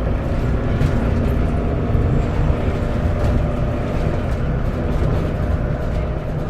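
Lothian TransBus Trident double-decker bus's engine and drivetrain running steadily under way, a continuous low rumble with a steady engine tone, heard from inside the bus. A few light knocks or rattles sound through it.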